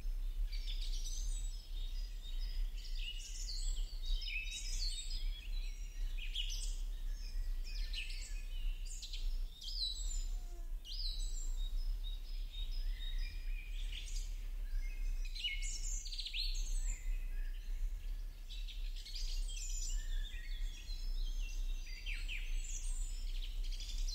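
Several birds chirping and singing continuously in quick, overlapping high notes and short downward sweeps, over a steady low electrical hum.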